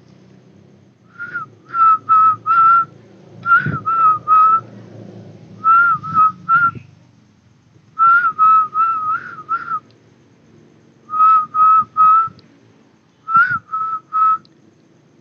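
A high whistle-like call in quick runs of three to five short notes, repeating about every two seconds, over faint low rustling.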